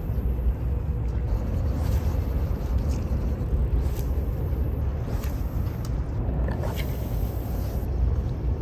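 Steady low outdoor rumble, flickering in level, with a few faint clicks.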